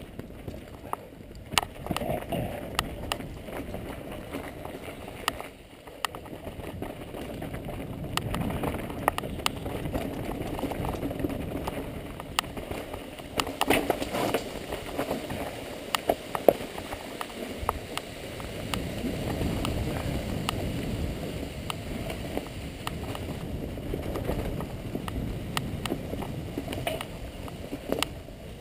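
Mountain bike rolling fast downhill over rocks and dry leaves: a steady rumble and rattle from the tyres and bike, with many sharp knocks as the wheels strike rocks, thickest about halfway through.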